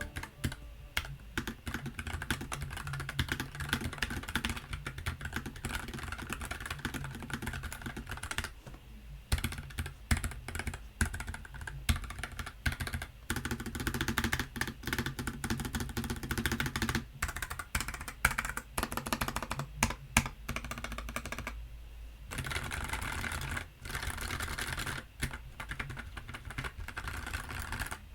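Typing on a Nuphy Air60 low-profile mechanical keyboard with Gateron low-profile Red linear switches: a fast, continuous run of keystroke clicks, with short pauses about nine seconds in and about twenty-two seconds in.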